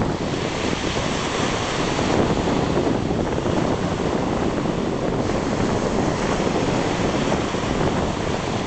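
Wind buffeting the microphone over small waves washing onto a sandy shore, a steady rushing noise.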